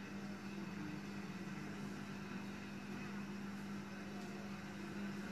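Steady machine hum with a low drone, unchanging throughout, like a running appliance motor.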